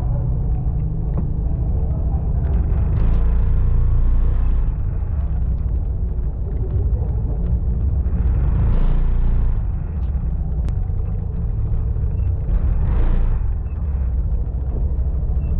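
Motorcycle engine running at low town speed, a steady low rumble with wind noise on the microphone, swelling briefly three times.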